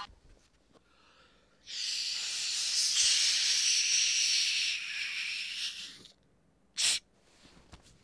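A long steady hiss, about four seconds, followed near the end by one short sharp noise.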